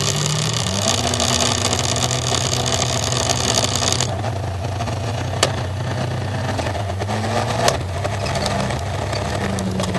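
Onboard sound of a rallycross Supercar engine held at steady high revs on the start grid, with a hiss over it; about four seconds in the hiss cuts off as the start light goes green and the car launches. The engine then runs on under acceleration with small steps in pitch and a couple of sharp clicks.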